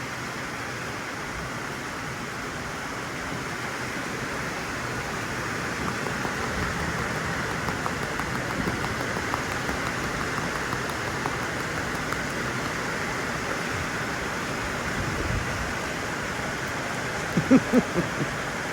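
Steady hiss of light rain, a drizzle. Near the end come a few short, loud sounds.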